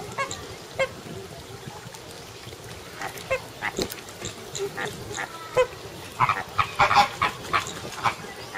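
A flock of flamingos honking, short goose-like calls overlapping one another. They are scattered at first and thicken into a busier, louder run of calls about six to seven and a half seconds in.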